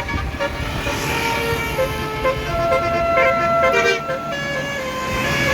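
Bus telolet horn (a basuri-type multi-tone electric horn) playing a tune: short repeated notes, then longer held notes stepping up and down in pitch, over the low rumble of bus engines.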